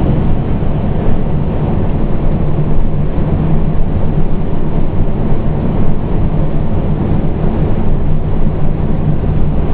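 Pierce Enforcer fire engine's diesel engine and road noise heard from inside the cab while driving, a loud, steady low rumble.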